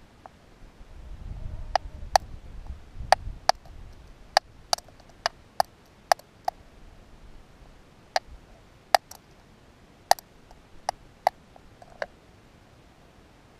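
Stone striking stone by hand: well over a dozen sharp clicks at uneven spacing, with a short pause partway through, as pebbles are knapped to flake off a sharp edge for a primitive stone knife.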